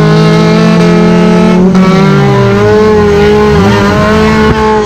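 Off-road vehicle engines running at high revs, held steady, with one engine note falling in pitch about halfway through and climbing again near the end.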